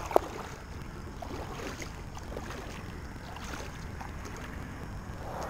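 A plastic sit-on kayak being paddled on calm water: light splashing and dripping from the paddle blade, with one sharp knock right at the start.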